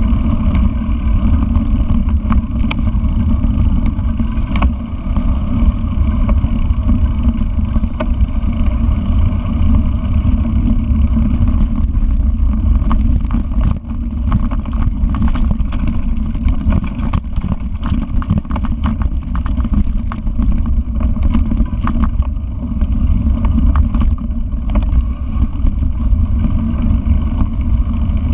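Mountain bike rolling over a rough dirt trail, heard through an action camera mounted on the bike: a loud steady low rumble of wind and tyre noise, with frequent sharp clattering knocks from the bike and mount over bumps, most frequent in the middle.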